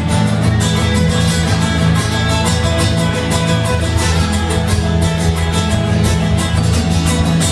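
Two acoustic guitars playing an instrumental break, strummed in a steady rhythm with no singing.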